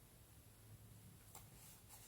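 Near silence: quiet room tone with a faint light tick about a second and a half in.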